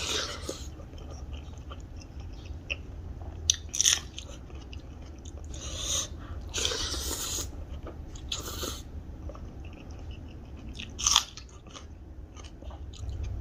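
A person eating close to the microphone: irregular bites and chewing, with a few sharper crunches and smacks.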